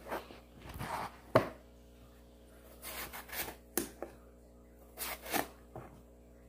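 A knife slicing lengthwise through an eggplant on a plastic cutting board: soft rasping cuts, each ending in a sharp tap of the blade on the board, three times.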